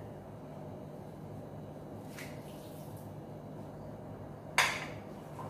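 Steady low hum of a quiet kitchen with faint handling noises, then a single sharp knock of a dish or utensil about four and a half seconds in.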